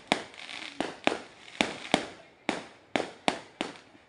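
Aerial fireworks bursting overhead in a quick, irregular run of sharp bangs, about ten in four seconds, each trailing off, with a crackling hiss between some of them.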